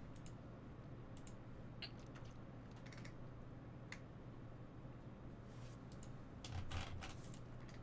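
Computer keyboard typing in short scattered bursts of light clicks, with a louder cluster of keystrokes near the end, over a low steady hum.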